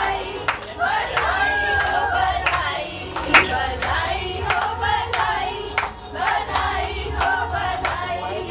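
Voices singing a song together, with hands clapping along every half second or so; one sharper, louder clap comes about three and a half seconds in.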